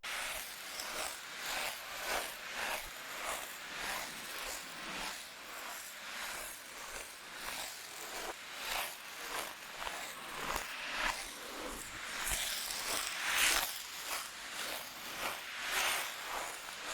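Ice skate blades scraping across ice in a rhythm of strides, a hissy scrape about every half second or so, with one longer, louder scrape about three-quarters of the way through.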